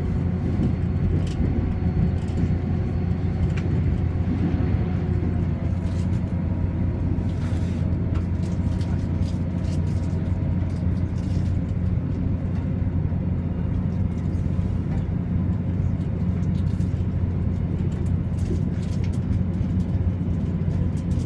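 Steady low rumble inside a moving train carriage, its wheels running on the rails, with faint steady whining tones from the running gear above it.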